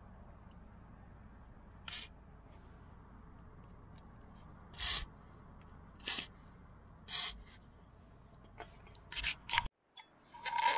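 WD-40 aerosol can sprayed through its straw in several short hissing bursts onto the rusty brake caliper and its bolts, the longest burst near the middle.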